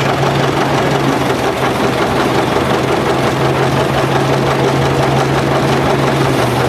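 An engine running steadily, with a constant low hum that does not change in pitch or level.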